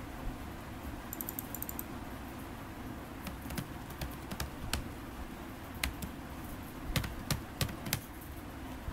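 Typing on a computer keyboard: scattered key clicks, with a quick run of light taps about a second in and a few louder clicks in the last couple of seconds.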